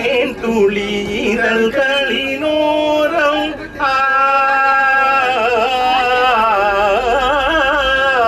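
A man singing solo into a bus's handheld PA microphone, his voice coming through the loudspeakers. He sings short bending phrases, then about four seconds in holds one long note with a wide vibrato.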